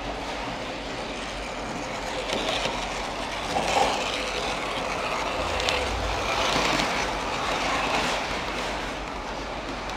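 Märklin model electric train running along its track, its motor and wheels whirring with small clicks. It grows louder as it comes past, about two seconds in, then eases off near the end.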